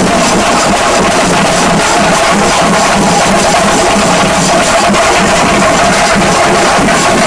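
Two shinkarimelam troupes playing chenda drums against each other in a drum face-off: dense, rapid stick strokes from many drums at once, very loud and unbroken.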